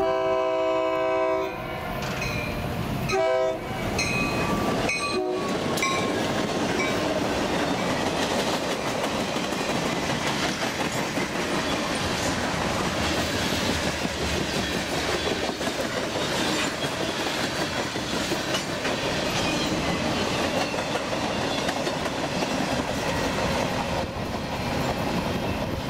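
A diesel locomotive horn sounds a chord-like blast, then short blasts about three and five seconds in. Then a freight train rolls past close by, its cars making a steady rolling rumble on the rails.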